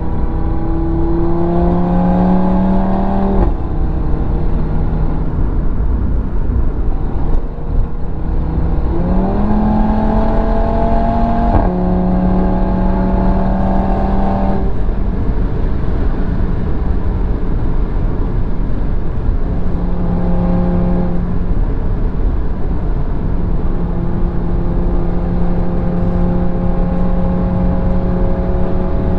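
Sports car engine and road noise heard from inside the cabin at motorway speed. The engine note climbs under acceleration about a second in and again around nine seconds, each climb ending in a drop in pitch at an upshift. Later it settles to a steady cruising tone over constant road and wind rumble.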